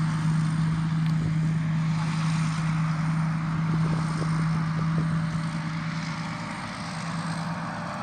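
Rice combine harvester's engine running steadily, a continuous low hum with machine noise over it, getting a little quieter near the end.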